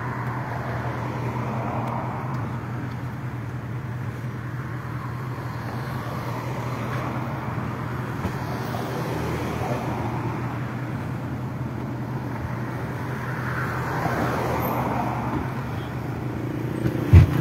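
Road noise heard from inside a moving car's cabin: a steady low engine and tyre hum under an even rush, swelling a few times as other vehicles pass. One sharp knock just before the end.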